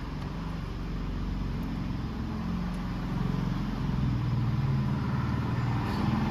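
A motor vehicle's engine running close by, a low hum that grows louder over the last few seconds.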